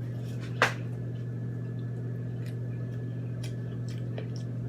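Steady low electrical hum, with one sharp click about half a second in and a few faint ticks.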